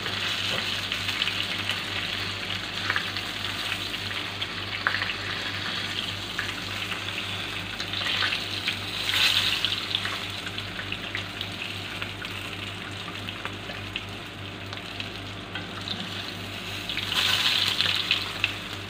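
Whole mullet frying in hot oil in a pan, sizzling steadily, with light clicks of metal tongs as the fish are lifted out. The sizzle swells briefly about halfway through and again near the end. A kitchen exhaust fan hums steadily underneath.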